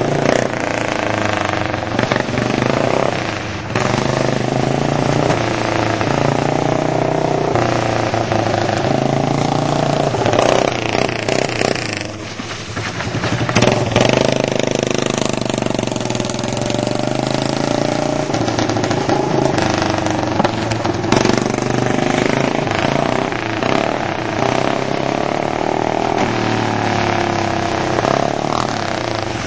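Go-kart's Honda GX200 single-cylinder engine running, its pitch rising and falling as the throttle is worked. It eases off briefly about twelve seconds in, then picks up again.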